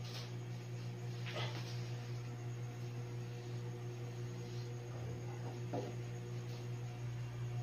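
Steady low electrical hum, with a few faint light clicks about a second and a half in and again near six seconds, as the wire cage mouse trap is handled and set down on the floor.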